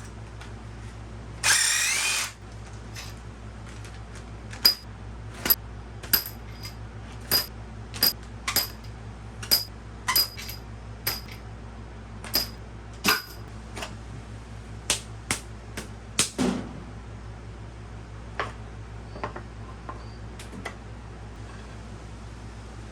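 A cordless power tool whirs briefly about a second and a half in, followed by a long run of sharp metallic clicks and knocks, about one or two a second, as engine parts are worked on and set down.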